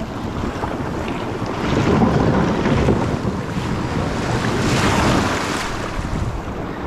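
Wind blowing across the microphone over the wash of the sea, swelling louder about two seconds in and again around five seconds.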